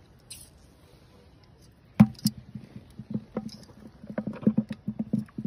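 Water splashing and sloshing in shallow muddy water as metal eel tongs work in the mud. It starts with a sharp splash about two seconds in and goes on as a quick, irregular run of wet slaps and thuds.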